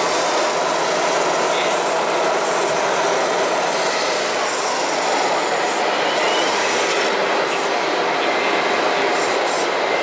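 Steady, dense background din of a busy indoor hall, with no single sound standing out.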